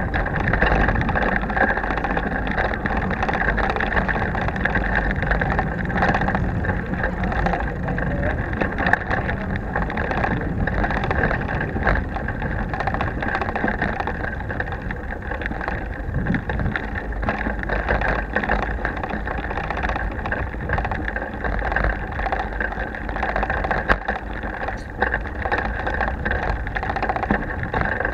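Bicycle rolling over cobblestones, picked up by a camera clamped to the handlebars without its protective housing: a continuous rattling rumble from the vibration, full of small clicks.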